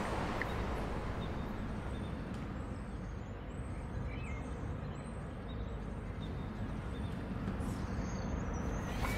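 Outdoor park ambience: a steady low background rumble with a few faint bird chirps.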